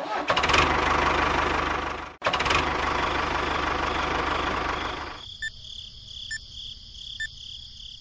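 An engine running with a fast pulsing rumble that cuts out abruptly about two seconds in and picks up again. It drops after about five seconds to a quieter steady high whine with faint ticks about once a second.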